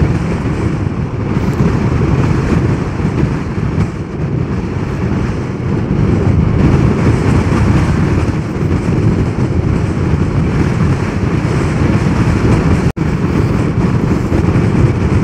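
Steady wind rush over the microphone and road noise from a Zero DSR electric motorcycle riding at speed, with no engine note to be heard. The sound briefly cuts out about thirteen seconds in.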